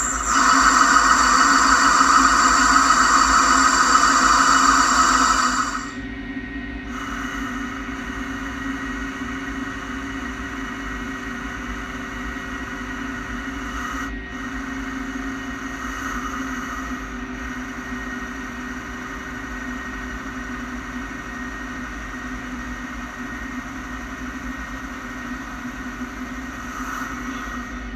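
Samsung SL 15 CNC lathe running with a steady whine made of several tones. About six seconds in it drops noticeably quieter and carries on evenly, with a single brief click a few seconds after that.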